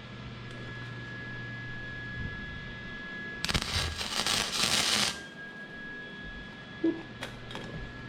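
Welding arc crackling for about a second and a half as a tack weld is laid on a small steel cable stop, over a steady electrical hum. A few short clicks follow near the end.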